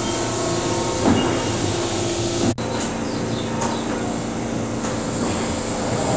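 Keihan electric train moving slowly along the platform, its running gear and motors giving steady machine tones, cut off sharply about two and a half seconds in. Then a stopped Keihan 10000-series train stands with its doors open, its onboard equipment humming steadily, with a few faint clicks.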